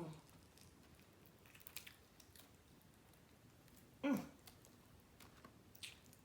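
Quiet chewing and mouth sounds of someone eating chicken wings, with scattered small wet clicks. About four seconds in comes a brief louder hum that falls in pitch.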